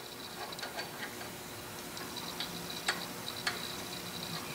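Faint metallic clicking and ticking of a steel hex nut turned by hand onto a freshly cut 12 mm metric thread, with two sharper clicks about three seconds in. This is a test fit that checks the thread's depth.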